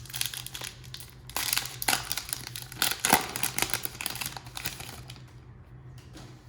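Trading cards handled and slid over one another, a quick run of light clicks and rustles that thins out near the end.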